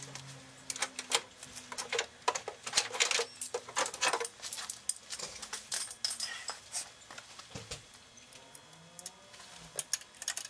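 Irregular metallic clicks and clinks of hand tools, sharp and closely spaced for most of the first two-thirds, then thinning to scattered ticks.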